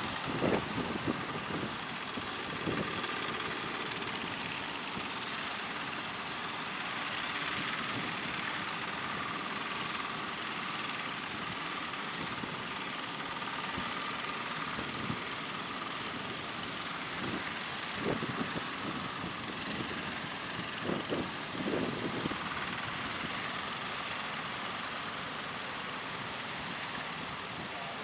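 Steady rush of breaking surf and wind, with the engines of motorized fishing boats running under it as a faint steady whine. A few brief wind buffets hit the microphone about two-thirds of the way through.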